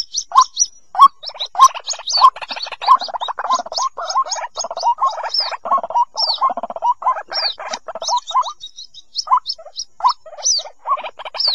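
White-breasted waterhen chicks calling for their parent: a dense, unbroken chorus of high, thin peeps, several sliding downward, over lower raspy calls.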